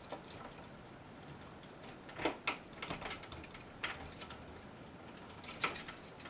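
Two-lever tryout key rattling and turning in a mortice door lock: a scatter of sharp metallic clicks, the loudest about two seconds in and again near the end.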